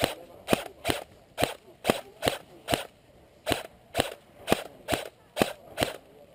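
Footsteps crunching on dry fallen leaves on a forest floor, a steady walking pace of about two steps a second, with a short break about three seconds in.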